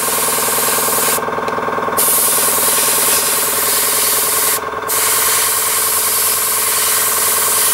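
Airbrush hissing as it sprays primer at about 22-23 psi through a 0.3 mm needle. The spray stops for about a second just after the start and again briefly about halfway through. Under it the air compressor runs with a steady hum.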